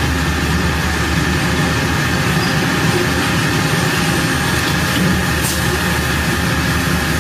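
Steady machinery noise with a constant low hum and a faint high whine, running evenly without a break.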